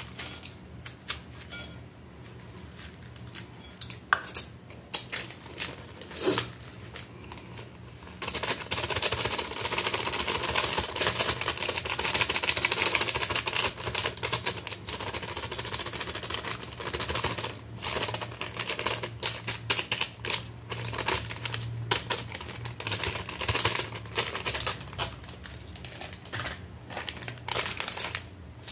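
A crinkly plastic snack bag of shoestring potato sticks being handled and shaken out, the dry sticks crackling and rustling. It starts as scattered small clicks, then from about eight seconds in becomes a long, dense crinkling rustle that breaks up into shorter rustles near the end.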